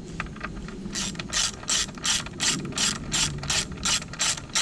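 Hand socket ratchet wrench worked back and forth to run down bolts. Its pawl clicks in short bursts on each return swing, about three a second, starting about a second in.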